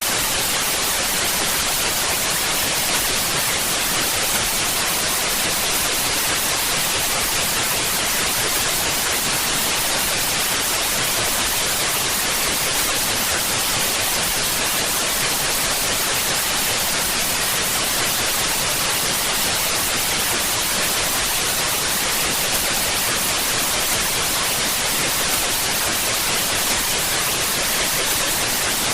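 Steady static hiss, an even white-noise rush that is strongest in the high range and holds one level without a break.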